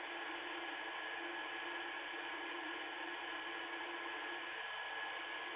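Steady, even hiss with a faint high whine held underneath; nothing starts or stops.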